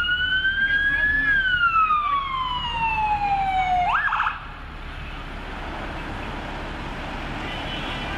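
Ambulance siren wailing: one slow rise and fall, then a short upward whoop, and the siren cuts off suddenly about four seconds in. The ambulance's engine and road noise carry on after it, slowly growing louder as it approaches.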